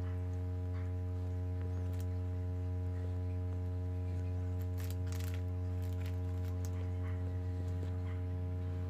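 A steady low electrical hum runs throughout. Over it come a few faint, scattered clicks and rustles as small plastic butterfly hair clips are handled and snapped into hair.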